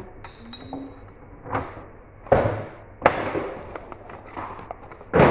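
Kitchen clatter: a spoon clinks on a glass cup near the start with a brief ring, then about four sharp knocks and bangs as things are handled and set down, the loudest near the end.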